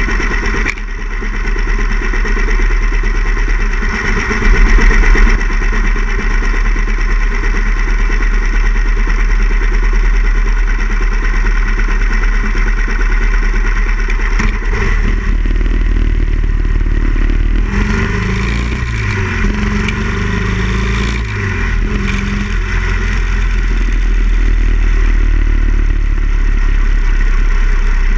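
Harley-Davidson Ironhead Sportster XL1000's air-cooled V-twin idling at a standstill, with a brief louder burst about four seconds in. About halfway through the motorcycle pulls away, the engine note rising and falling several times as it works up through the gears, then running on steadily under way.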